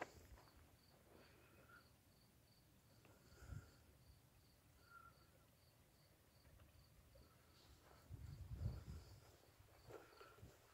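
Near silence with a faint cricket chirping steadily, about three chirps a second. A brief low rumble comes about eight seconds in.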